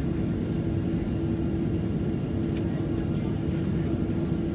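Inside the cabin of a Boeing 737-700 with its CFM56-7B engines idling while the aircraft holds on the ground: a constant low rumble with a steady droning tone.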